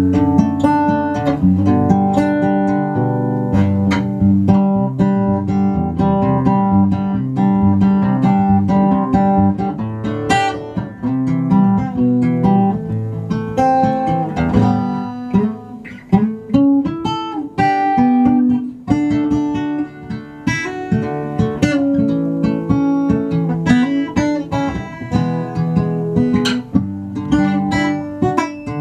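Steel-string acoustic guitar playing a continuous passage of picked notes and chords, heard through amplifiers. The sound is a blend of the guitar's own pickup signal and a Variax-modelled dreadnought acoustic tone.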